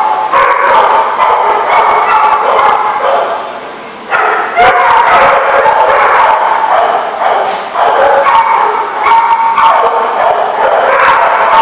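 Dogs barking and yipping almost without a break, several at once, with a short lull about four seconds in.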